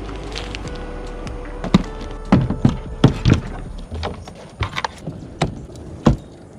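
Series of sharp knocks and hollow thuds of fishing gear and a plastic kayak being handled and loaded, over a low steady hum that fades out about four seconds in.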